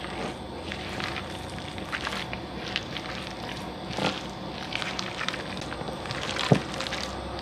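A spatula folding a wet crab-meat and cheese stuffing in a glass bowl: soft irregular squishing with small clicks and scrapes against the glass.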